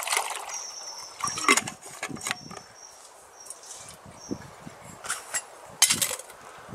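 Rustling and knocking of camp cooking gear being handled, in several short bursts, with a few brief high chirps from birds.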